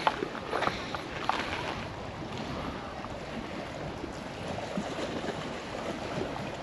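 Wind rushing over the microphone at a windy lakeshore, a steady noisy hiss, with a few faint short clicks in the first couple of seconds.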